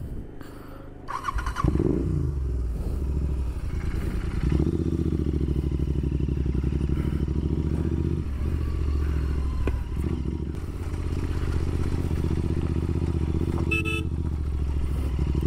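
Royal Enfield Continental GT 650's parallel-twin engine running through a Red Rooster Performance slip-on exhaust as the bike is ridden. It revs up, rising in pitch, about two seconds in, then runs at a steady note.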